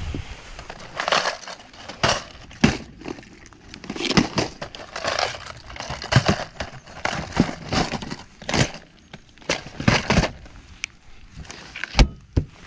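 Plastic tackle boxes clattering and rustling as they are handled in a boat's deck storage hatch, in an uneven run of knocks and scrapes, with one sharp knock near the end as the hatch lid shuts.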